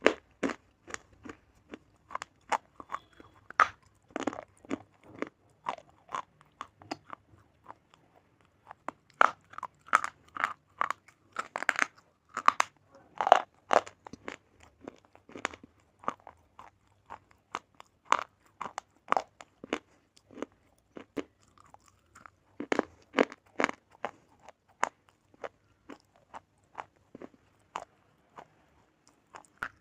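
Crunching and chewing of slate pencil bars close to the microphone: a run of sharp, brittle cracks in irregular clusters, with louder bites now and then.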